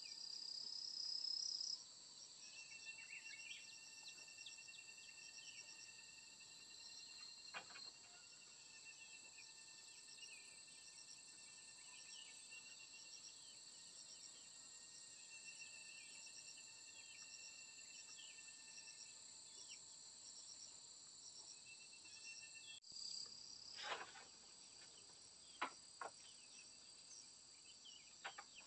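Steady high-pitched insect chorus in several tones, one of them a fast pulsing trill, with a few light knocks of bamboo slats being handled.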